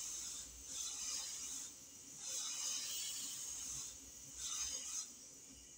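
Steam iron releasing shots of steam onto fabric: a hiss in about four bursts, each roughly a second long, while the iron is pressed down on the cloth.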